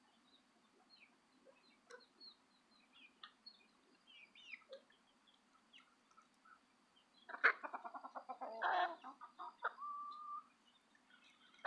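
Backyard chickens feeding, with faint scattered chirps and clucks. About seven seconds in, one bird breaks into a loud, fast run of clucks that swells into a squawk and ends in a short held note.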